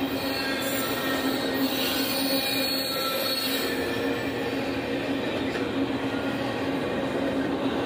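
Double-stack intermodal freight train passing a grade crossing: a steady noise of wheels on rail with several held whining tones over it, typical of steel wheels squealing on the rail.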